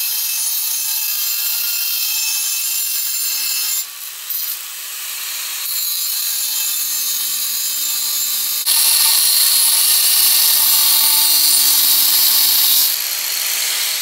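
Angle grinder with a cut-off wheel cutting through an unhardened high-carbon steel bar: a steady, loud, hissing grind. It dips briefly about four seconds in, steps up louder a little before nine seconds, and trails off near the end.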